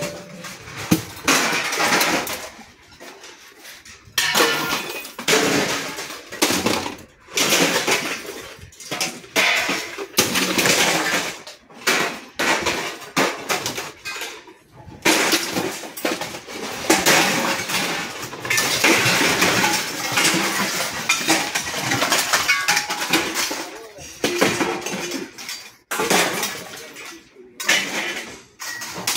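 Irregular clattering and clinking of hard objects, one knock after another with short pauses between bursts.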